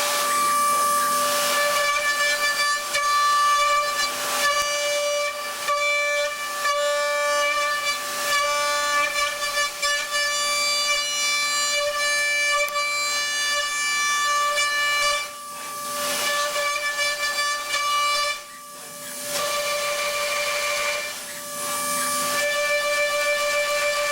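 DATRON high-speed milling machine cutting an electronics housing: a steady high whine from the spindle and cutter, with several pitches at once over a hiss. It drops away briefly three times in the second half.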